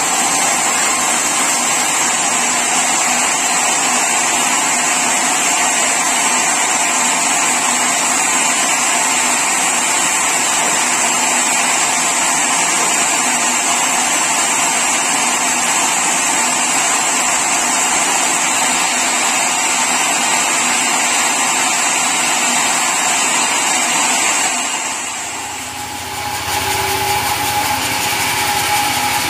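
Sawmill saw cutting through mahogany timber: a loud, steady cutting noise with a high whine. About 25 seconds in the cut ends and the level dips briefly, then the machine runs on with a lower, even hum.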